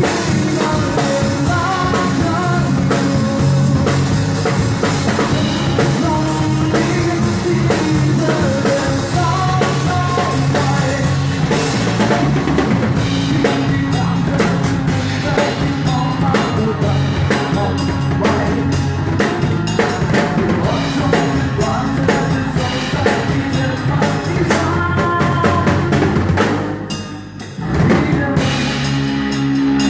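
Rock band playing live, with drum kit, bass and a melody line, possibly sung. The music drops away briefly near the end, then starts again.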